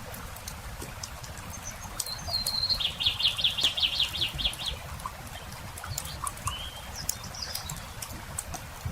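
Campfire crackling with scattered sharp pops, while a bird sings a fast trill of about a dozen even notes, loudest about three seconds in, followed by a few short chirps.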